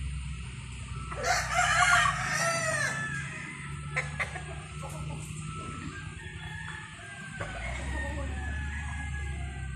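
A rooster crows once, loud, starting about a second in and lasting about a second and a half, with fainter chicken calls around it. A sharp click comes a few seconds in.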